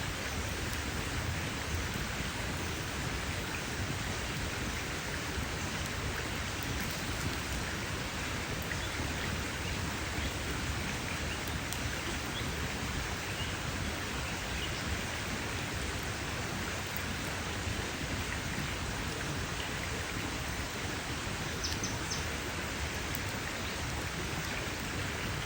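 Campfire burning with a steady hiss and a few faint crackles.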